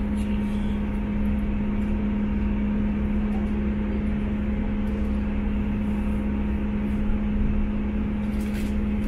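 Inside the carriage of a BR Class 159 diesel multiple unit under way: the underfloor Cummins diesel engine and transmission give a steady droning hum over the low rumble of wheels on the track. Faint ticks come through near the end.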